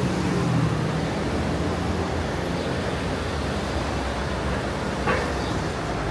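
Cars driving past on a city street over a steady traffic hiss, one car's engine hum loudest in the first second and then fading. A short click sounds about five seconds in.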